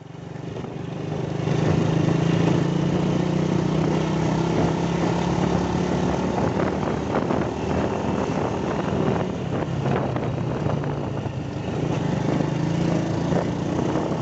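Small motorcycle engine running while riding, rising over the first two seconds and then holding steady.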